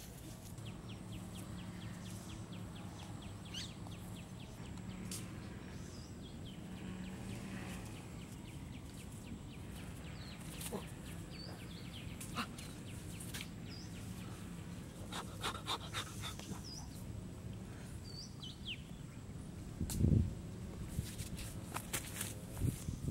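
Outdoor rural ambience: scattered short, high bird chirps over a steady low hum, with a few sharp clicks and a run of fast faint ticks in the first few seconds. A louder low thump comes near the end.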